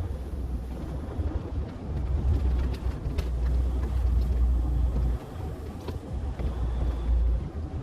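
Heavy semi truck running with a steady low rumble, a few faint clicks over it.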